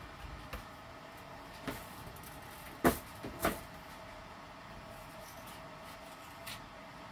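Kitchen knife slicing watermelon on a cutting board: a handful of short knocks and clicks, the loudest pair about three seconds in, over a faint steady hum.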